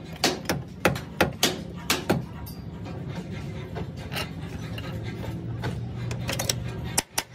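Sharp metal clicks and knocks from a hand tool being worked against a stripped car body's door pillar, about three a second at first. A steadier rubbing noise follows, and near the end comes a quicker run of clicks.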